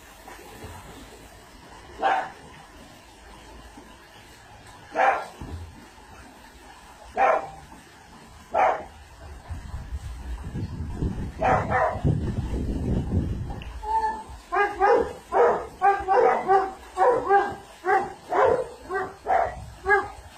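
A dog barking: single barks every few seconds at first, then a fast, excited run of about two barks a second. A low rushing noise sits under the middle of the stretch.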